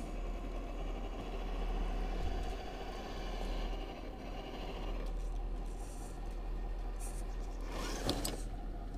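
Sound module in a 1:10 RC crawler playing a simulated engine sound as the truck climbs a snowy bank, with the electric drive running underneath. About eight seconds in, a short rustling crash as the crawler rolls over onto its side in the snow.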